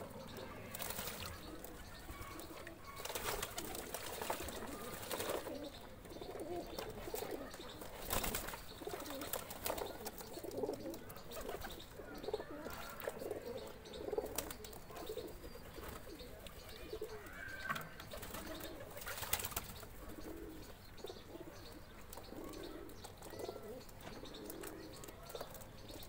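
Domestic pigeons cooing over and over in low, short phrases while bathing in a tub of water. Several sudden bursts of wing flapping and splashing come through, the strongest about eight and nineteen seconds in.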